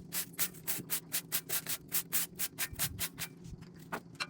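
Rhythmic scrubbing strokes on a reed demijohn basket, about four or five a second, stopping about three seconds in, followed by a single knock. A distant chainsaw's steady hum runs underneath.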